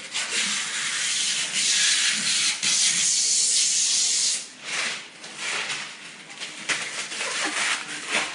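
Clear protective plastic film being peeled off a new mini-split wall unit and crumpled. The rustle is long and even for about four seconds, then comes in irregular crinkling bursts.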